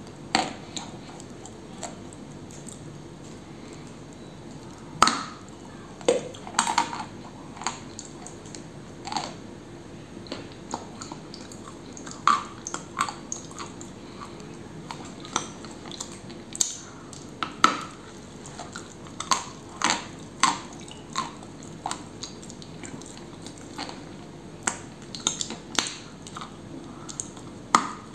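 Edible pressed clay coated in cream being bitten and chewed: sharp, crisp crunches at irregular intervals, some much louder than others, with quieter chewing between them.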